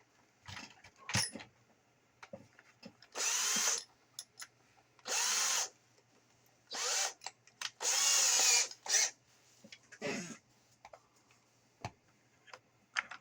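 Power drill run in short trigger bursts, about six of them, boring out a hole in a plastic radio case with the last and largest of a series of step-up bits. The motor's pitch rises and falls with each burst, and light clicks and handling noises come between the bursts.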